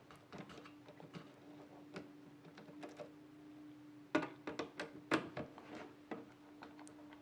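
Small metallic clicks and ticks of a screwdriver turning the screws on a motherboard's M.2 heatsink cover, with two sharper clicks about four and five seconds in. A faint steady hum runs underneath.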